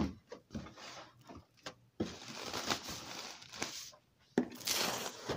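Handling noise from a phone held close to the body: rustling and rubbing with several sharp clicks and knocks, coming in two longer rustly stretches in the second half.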